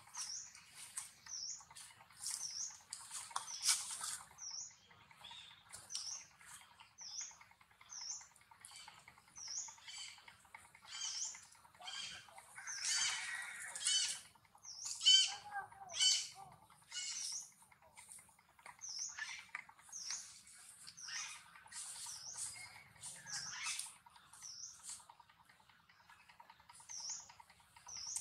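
Small birds chirping: short, high chirps repeating about once a second, with a cluster of louder, harsher calls about halfway through.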